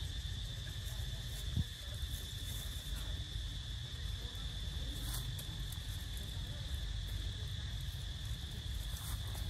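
Steady, unbroken high-pitched drone of insects calling, over a low rumble, with a single short thump about one and a half seconds in.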